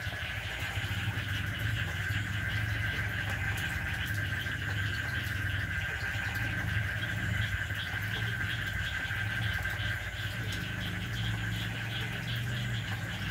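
A steady night-time chorus of calling animals: a continuous high, rapidly pulsing trill that does not change. Beneath it runs a low, steady hum.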